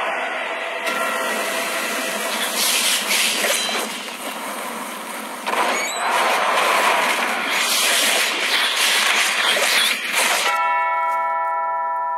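Trailer sound design: a dense, loud roar with several sharp hits and surges, cut off about ten and a half seconds in by a sustained ringing, bell-like chord that slowly fades.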